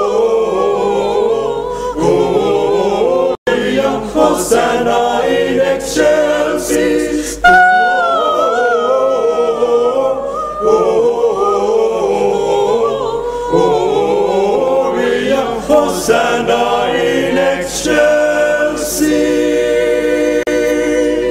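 Small mixed a cappella group, four men and a woman, singing a Christmas carol in close harmony without instruments, ending on a held chord. The sound drops out for an instant about three seconds in.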